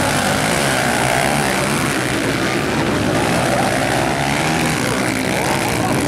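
A pack of motocross dirt bikes racing together, many engines revving up and down over one another in a loud, continuous buzz.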